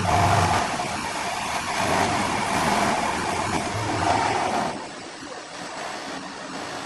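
Horizontal five-axis machining centre rough-milling a metal workpiece with an end mill, on a fixed axis. The cutting makes a steady, noisy sound that drops in level about five seconds in.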